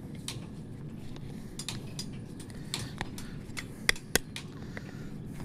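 Short metallic clicks and clinks of farrier's tools on a horseshoe and its nails as the nails are pulled out of the shoe, irregularly spaced, with two louder clicks about four seconds in.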